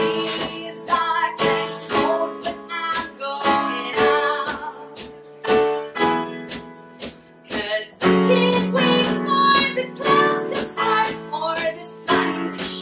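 Live acoustic band: a woman singing over piano, acoustic bass guitar and drums played with sticks.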